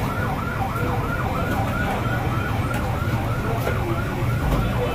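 An electronic siren in a fast yelping warble: a tone sweeping up and down about four times a second, repeating evenly, over a steady low rumble of street noise.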